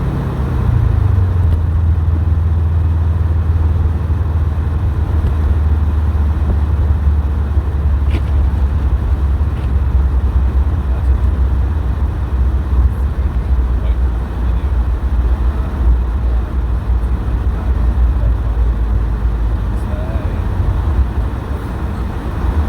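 Subaru WRX STI driving, heard from inside: a steady low engine drone under road and tyre noise. The engine note drops about a second in, then holds steady.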